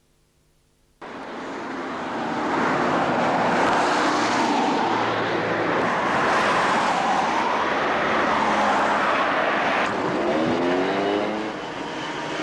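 A motor vehicle's engine running loudly, starting abruptly about a second in. Near the end it drops a little and rises in pitch, as if revving up.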